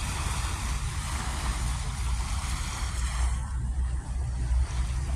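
Strong wind buffeting the microphone: an uneven low rumble over a steady rushing hiss.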